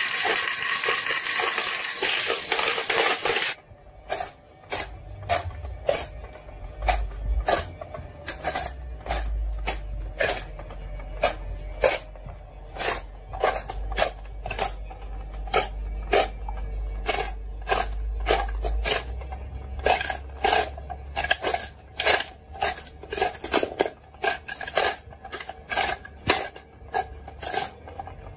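Marbles clicking and clacking down a wooden HABA marble run, many sharp irregular clicks, several a second, over a low hum. A loud rushing noise comes first and cuts off suddenly about three and a half seconds in.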